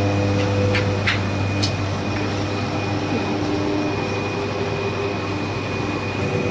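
Richpeace automatic single-ply cutting machine running: a steady low hum with a thin high whine above it, motor tones shifting as the cutting head moves, and a few short clicks in the first two seconds.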